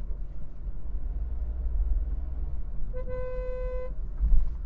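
Low engine and road rumble inside a moving Volkswagen Polo 1.0 TSI's cabin, with a vehicle horn sounding once, a single steady note held for about a second, past the middle. A low thump near the end.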